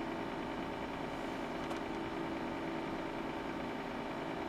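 Steady whir and hum of bench test-equipment cooling fans, with a faint tick about one and a half seconds in.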